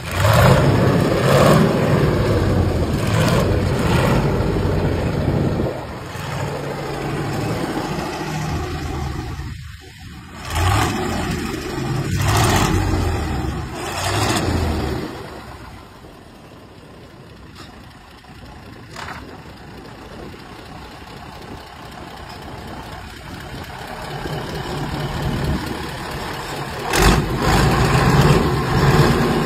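Truck diesel engine fitted as the power unit of a long-tail boat, running hard and driving its long propeller shaft. The engine sound is loud at first, quieter through the middle and builds again near the end.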